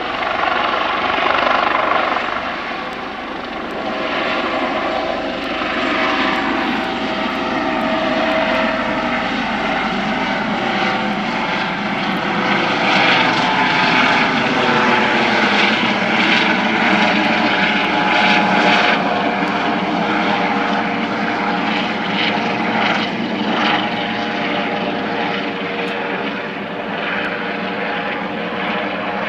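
Eurocopter AS365 Dauphin air-ambulance helicopter lifting off from hover and climbing away, loud throughout. Its rotor and turbine sound carries several whining tones that drift slowly in pitch as it moves.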